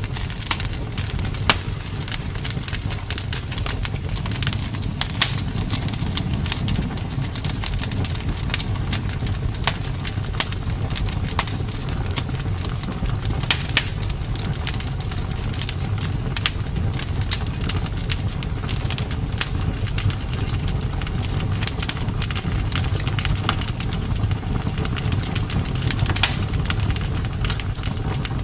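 Wood fire in a fireplace crackling: frequent short sharp pops and snaps over a steady low rumble of the burning fire.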